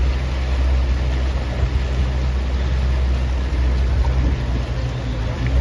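Motorboat engine running with a steady low hum as the boat moves along the canal.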